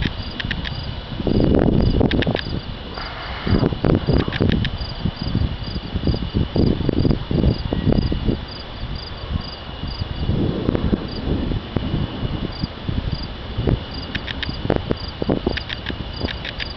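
Crickets chirping and trilling steadily in a regular rhythm, about two chirps a second. Under them runs an irregular low rumbling that swells and fades every second or two.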